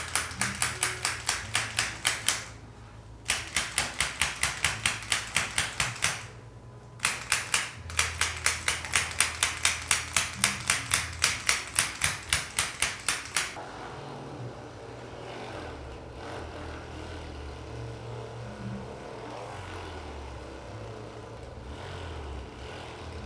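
Rapid, very regular mechanical clicking, about five clicks a second, from a percussive chiropractic instrument worked over the back to loosen the muscles before an adjustment. It comes in three bursts, each stopping abruptly. After about 13 seconds only a low hum remains.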